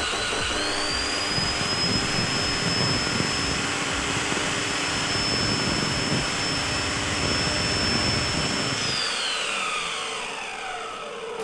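Bosch GCO 200/220 cut-off saw's universal motor and blade running up with a high whine, running steadily, then switched off about nine seconds in and winding down, its whine falling. This is a test run after a new field coil and carbon brushes were fitted.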